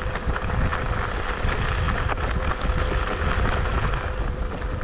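Kugoo G2 Pro electric scooter riding over rough off-road ground: a low rumble with small rattling clicks and a thin steady whine.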